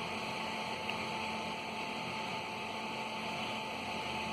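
Electric fan running steadily: an even whir of moving air with a faint, steady high tone.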